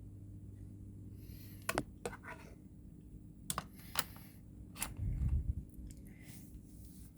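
Plastic clicks and taps from a car charger being handled and fitted into the adapter's cigarette-lighter socket: five or six sharp clicks, with a dull low bump about five seconds in.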